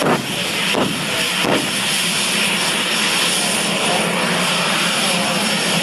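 Aircraft engine running loud and steady, a dense hissing noise, with three short sharp knocks in the first second and a half.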